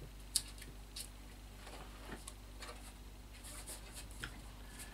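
Foam seat pad being bent and shaped by hand: faint scratching and rubbing with a few sharp clicks, the loudest about a third of a second in.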